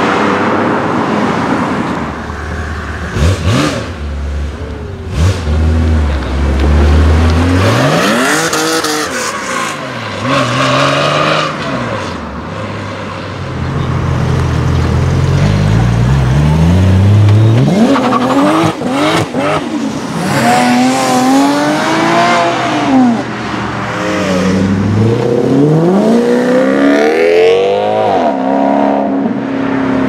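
Sports-car engines revving hard one after another as the cars drive off. The engine pitch climbs and drops again several times, first from a Ferrari 456's V12 and later from a Toyota Supra Mk3. A few sharp cracks come a few seconds in and again a little past halfway.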